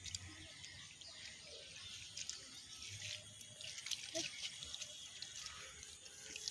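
Faint splashing and sloshing of hands groping through a shallow muddy puddle, with scattered small wet clicks and drips.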